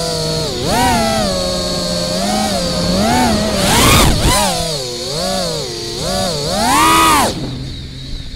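FPV quadcopter's Butterflight 2207 brushless motors whining, the pitch rising and falling again and again with the throttle, with a short noisy burst about four seconds in. Near the end the throttle drops back and the whine falls to a quieter, low steady hum.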